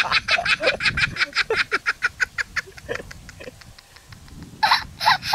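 A child laughing hard: a rapid run of high-pitched laughs that dies away about three seconds in, then another burst of laughter near the end.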